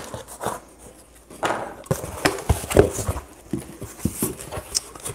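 Cardboard box flaps being pulled open and folded back, with irregular knocks and scraping rustles of cardboard.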